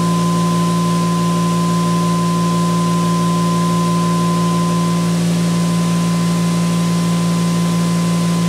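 Generator prototype and its electric-motor prime mover running steadily at about 3,420 RPM with the conventional generator coil on load: a steady low hum with a higher steady whine above it.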